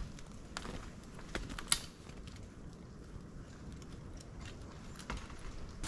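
Scattered light clicks and rustling as a wire snare is taken down from a tree and wrapped up by hand, the sharpest click about a second and a half in.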